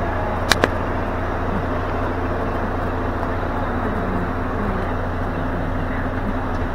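Volvo D13C six-cylinder diesel of a Volvo FH tractor unit idling steadily, with two sharp clicks in quick succession about half a second in.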